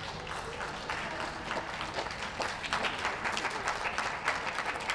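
Audience applauding in many scattered claps, growing denser and a little louder about halfway through.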